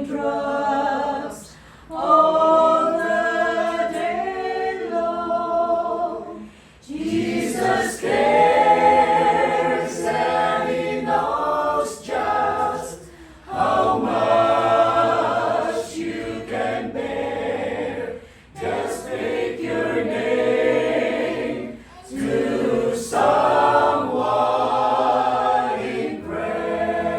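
Small choir singing a gospel song unaccompanied, in harmony, in phrases of a few seconds with brief pauses for breath between them.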